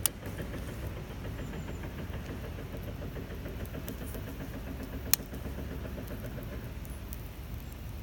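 Wood fire burning in a stainless-steel steamer-basket fire stand: a steady low rumble of flame with scattered small crackles, and a sharp pop right at the start and another about five seconds in.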